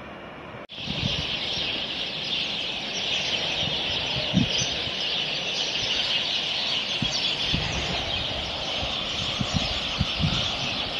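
A dense, continuous chorus of many small birds chattering together, starting abruptly just under a second in, with a few low thumps of wind or handling on the microphone.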